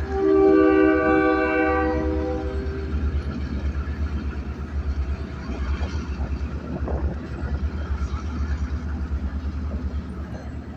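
Diesel locomotive horn sounding a long chord that cuts off about three seconds in, over the low, steady throb of the locomotive's diesel engine.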